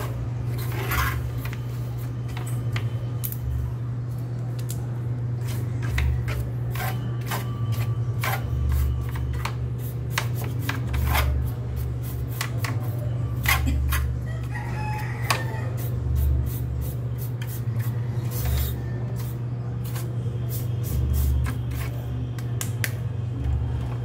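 A small plastic stick scraping and clicking irregularly along the aluminium fins of a portable air conditioner's dust-clogged coil, prying off thick mats of dust. A steady low hum runs underneath, with low thumps every second or two.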